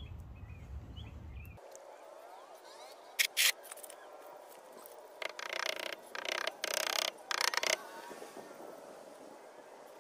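Ford Transit rear wheel hub being pushed and tapped onto the axle shaft with a dead-blow mallet: metallic scraping knocks, two close together about three seconds in, then a quick run of about seven between five and eight seconds in.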